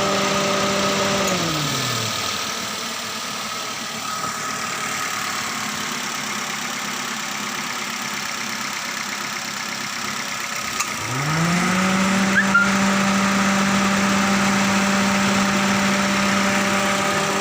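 Daihatsu Sirion engine idling. A steady whine over the engine sound winds down and fades about two seconds in, then winds back up about eleven seconds in and holds steady.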